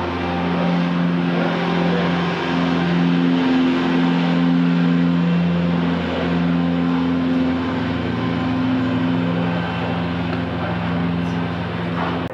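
Engine and propeller of a light single-engine aircraft running as a steady hum during its landing roll, the pitch shifting slightly a couple of times; the sound cuts off at the very end.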